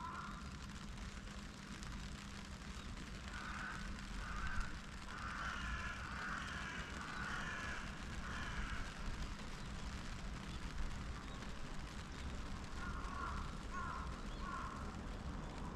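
Crows cawing in short series: a couple of caws, then a run of about five in a row midway, and three more near the end, over a steady low hum of distant city traffic.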